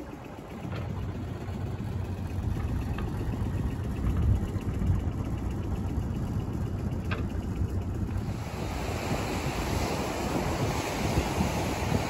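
Wind rushing over the microphone and sea noise aboard a sailboat under way, a low rumble with a few faint clicks. About eight seconds in, a louder, hissing rush of wind and water comes in.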